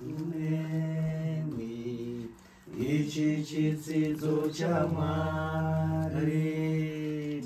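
Voices singing a slow, chant-like song with long held notes, pausing briefly about two and a half seconds in before the next phrase.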